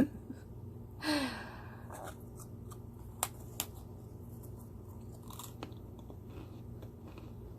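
A person chewing crunchy, sugary meringue sweets close to the microphone. There is a short breathy vocal sound about a second in, and two sharp crunchy clicks a little after three seconds.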